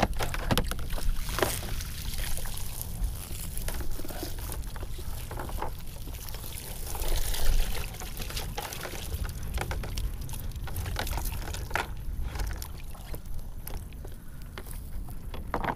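Water streaming and dripping from a wet cast net as it is lifted and shaken out over a kayak, with scattered clicks and knocks of handling. There is a louder rush of water about seven seconds in.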